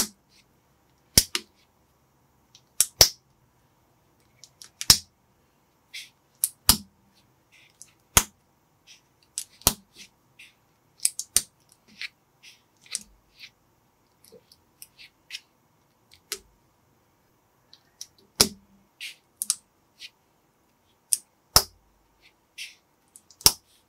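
Small plastic building bricks clicking as they are pressed and snapped together by hand: irregular sharp clicks, a louder one every second or two with fainter ticks of handling between, and a quieter stretch in the middle.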